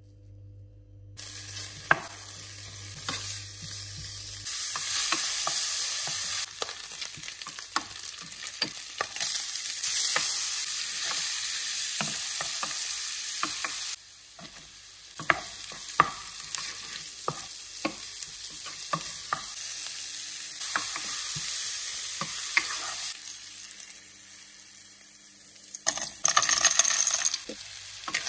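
Chopped pancetta and onion frying in a nonstick pan with a steady sizzle that starts about a second in and breaks off and resumes several times. A utensil stirring the pan gives frequent sharp clicks and taps against it.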